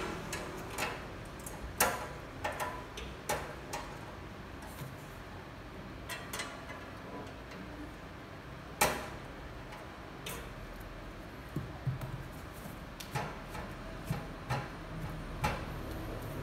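Scattered clicks and knocks as the shelves and fittings inside an open steel safe are handled and set in place, the sharpest about nine seconds in.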